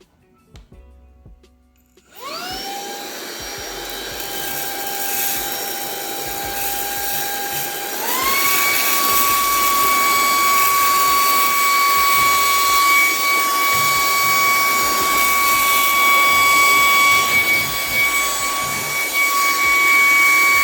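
Wyze handheld vacuum starting up: about two seconds in its motor spins up with a quick rising whine and runs steadily at normal speed over a rush of air. About six seconds later it steps up to turbo mode, with a higher, louder whine that holds steady.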